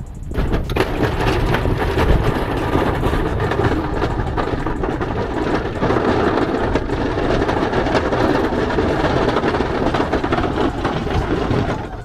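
A snow plow truck driving and pushing snow, heard from a microphone mounted outside on the hood. Wind rushes over the microphone with the truck's running noise, and crackles from snow and the plow blade run through it. The sound fades out sharply near the end.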